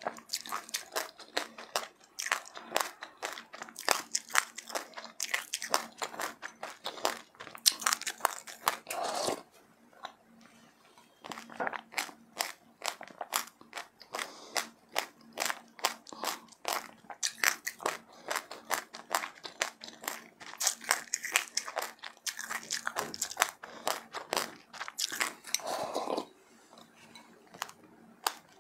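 Ice being bitten and chewed in rapid, crisp crunches. The crunching pauses briefly about ten seconds in and again near the end, over a faint steady hum.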